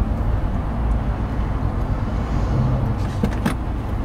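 Steady low rumble of road and engine noise heard inside a moving minivan's cabin, with a couple of light clicks a little past three seconds in.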